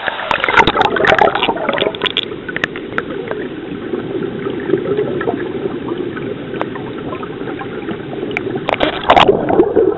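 River water splashing and gurgling close to the microphone as a trout is held by hand in the current and let go. A flurry of splashes comes at the start and another about nine seconds in, with steady burbling between.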